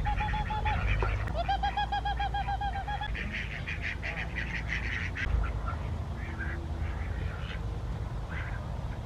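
Domestic ducks quacking: a short run of quacks at the start, then a rapid series of about a dozen quacks, about six a second, followed by softer, scattered quacks.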